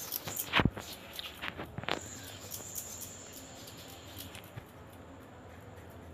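Potatoes being cut on a boti, the upright curved floor blade: a few sharp clicks of the blade going through the potato in the first two seconds, the loudest about half a second in, then only faint small scraping.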